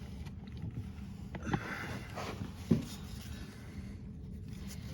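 A few faint clicks and knocks of hand tools against metal parts, over a low steady hum.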